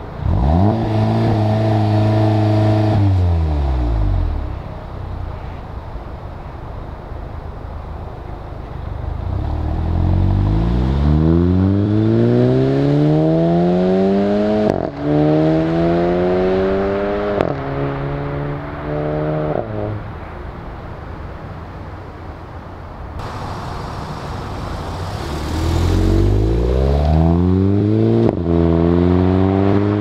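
VW Golf Mk7 GTI Performance's turbocharged 2.0-litre four-cylinder with the mid resonator deleted. At the start it revs up and holds steady on launch control for about three seconds, then the revs fall away. It then accelerates hard, the pitch climbing through the gears with quick upshifts that each drop the revs, and near the end it climbs through the gears again.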